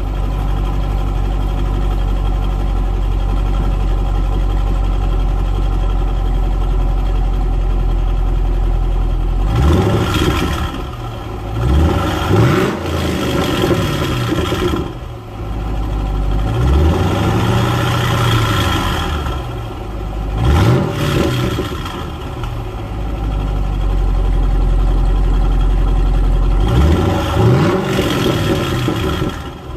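Chevrolet SS's 6.2-litre LS3 V8 exhaust idling steadily, then revved repeatedly with the throttle blipped: quick revs about ten, twelve, twenty-one and twenty-eight seconds in, and one held higher for about two seconds near the middle, each falling back to idle.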